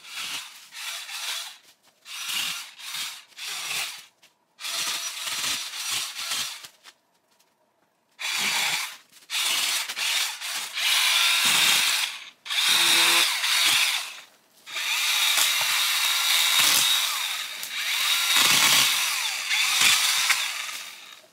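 DeWalt 20-volt cordless pole saw running as it cuts overhead branches. It goes in several short bursts for the first seven seconds, then after a brief pause in longer runs with a steady high motor whine.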